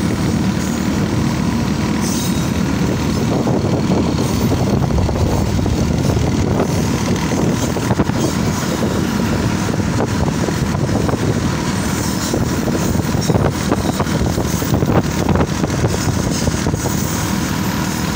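Hazara Express passenger train: a steady, loud rumble with many small clicks and rattles.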